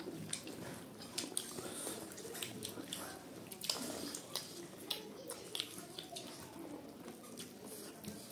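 Close-up mukbang eating sounds: chewing and lip smacking, with many small, irregular wet clicks.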